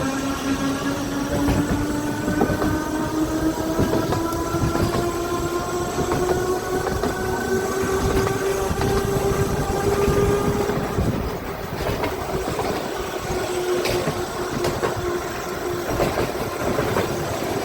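Electric tram's traction motor whining, rising in pitch for about ten seconds as the tram gathers speed, then holding steady, over the rumble and clatter of its wheels on the narrow-gauge track.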